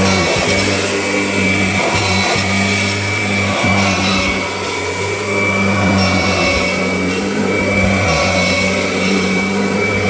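Kirby G6 upright vacuum cleaner running steadily: a loud motor hum with a constant high whine over it.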